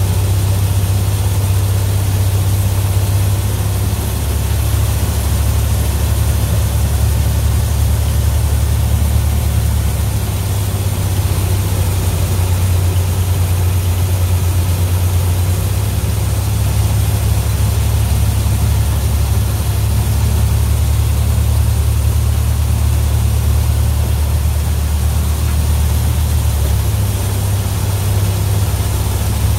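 Tractor engine running steadily under load, driving a New Idea two-row corn picker with sheller: a loud, low, continuous drone that shifts slightly in pitch a few times.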